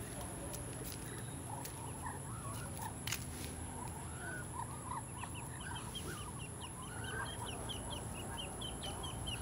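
Muscovy ducks making soft, short clucking calls, with a duckling peeping rapidly in a high voice from about halfway through. A few sharp clicks come in the first few seconds.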